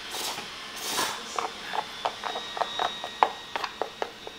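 A person slurping sauce yakisoba noodles, then chewing with a quick run of short wet mouth clicks.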